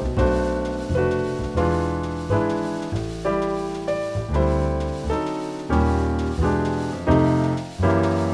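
Background piano music: chords struck about once a second, each ringing out and fading before the next.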